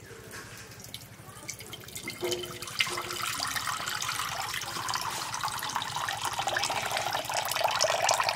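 Water pouring and splashing steadily, starting about three seconds in and growing louder toward the end, after two light knocks.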